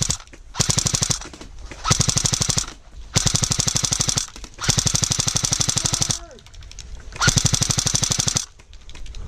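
Airsoft gun firing on full auto in five bursts of rapid, evenly spaced shots, the longest about a second and a half, with short pauses between.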